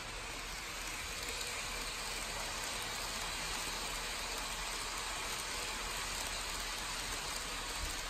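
KATO N gauge model train of the E001 Shiki-shima rolling past on its track: a steady hiss of the small wheels running on the rails, growing slightly louder about a second in.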